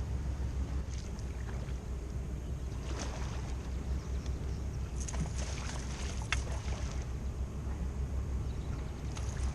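Steady low rumble on a boat out on the water, with a few light clicks and rattles about three seconds in and again in the middle.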